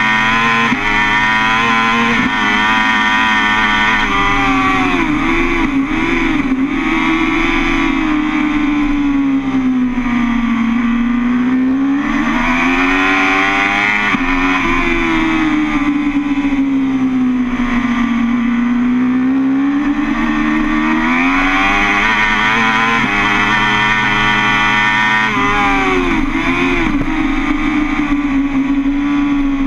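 BMW S 1000 RR's inline-four engine running hard on track, its pitch climbing under acceleration and falling off into the corners several times. Twice there are quick flicks up and down in pitch, as on downshifts.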